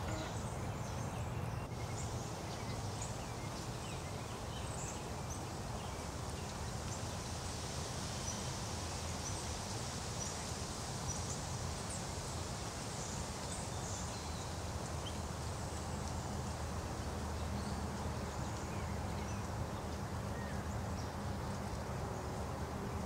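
Outdoor ambience: a steady low rumble of background noise, with faint, scattered high-pitched ticks and chips throughout.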